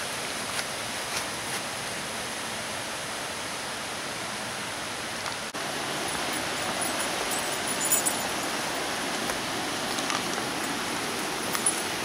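Steady rushing of a woodland stream and waterfall, briefly dropping about halfway and then a little louder and fuller. A few light taps of footsteps on the wooden boardwalk planks come near the end.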